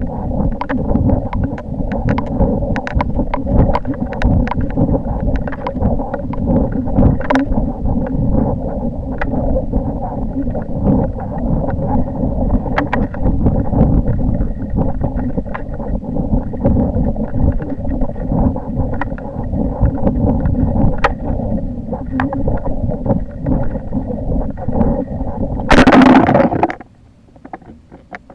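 Wind buffeting the microphone, with a steady rumble and scattered clicks. Near the end a loud rushing burst lasts about a second, then the noise cuts off suddenly and it goes much quieter.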